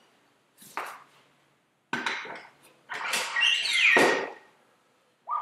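A spoked motorcycle wheel with its tire being lifted off a metal tire-changer stand and turned over: several separate clunks and knocks of rim and rubber against the stand, the longest and loudest past the middle with a short rubbery squeak.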